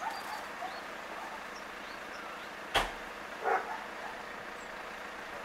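Outdoor background hiss with faint bird chirps, a sharp click about halfway through, and a single short dog bark in the distance just after it.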